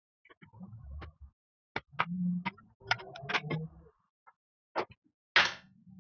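Scattered sharp plastic clicks and small knocks from a headset's parts being handled and fitted back together, with a brief scraping sound about five seconds in.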